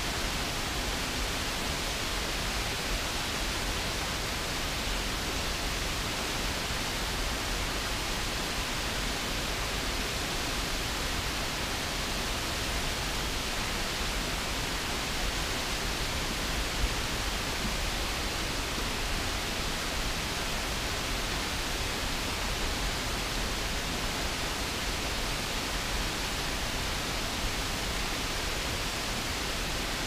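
Stroudwater Falls, a low, wide river waterfall, running with a steady, even rush of falling water.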